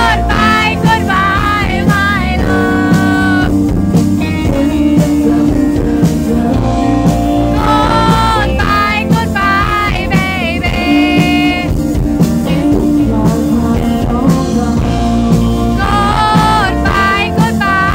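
Live band playing a slow rock/blues song: a singer's voice over strummed acoustic-electric guitar and electric bass. Sung lines come at the start, in the middle and near the end, with instrumental stretches between.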